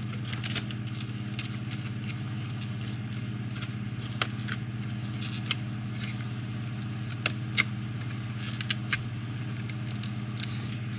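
Small, sharp clicks and taps from 3D puzzle pieces being handled and their tabs pushed into slots, scattered through the middle of the stretch, the sharpest about two-thirds of the way in, over a steady low hum.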